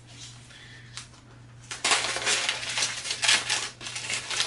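Newspaper wrapping handled and crumpled by hand as it is pulled off a parcel: a few quiet rustles, then loud continuous crinkling and crackling of the paper from about two seconds in.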